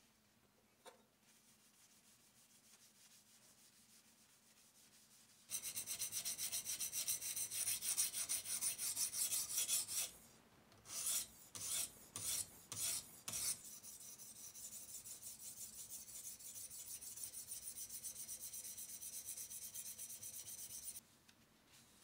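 Sharpening stone on a guided-rod knife sharpener scraped back and forth along the steel edge of a folding-knife blade. The rasping starts about five seconds in, breaks into a few separate short strokes midway, then carries on more softly until shortly before the end.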